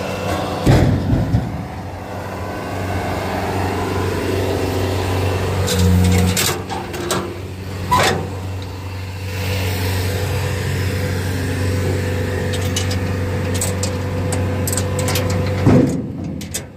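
Bobcat T590 compact track loader's diesel engine running steadily, with a short swell about six seconds in. A few sharp knocks and clatters, a little under a second in, around six to eight seconds in and again near the end.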